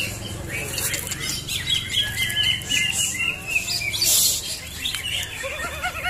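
Green leafbirds (cucak hijau) singing: quick runs of repeated, arched high chirps in the middle, and again rising in pitch near the end.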